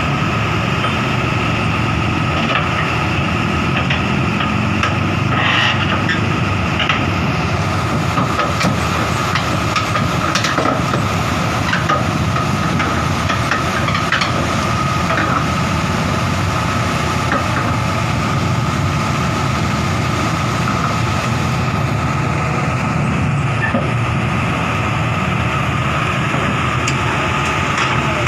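Excavator's diesel engine running steadily under a constant whine, with a few scattered knocks and clanks.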